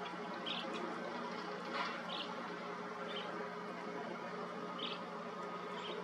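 Short high chirps from an unseen small animal, coming irregularly about once a second, over a steady low hum.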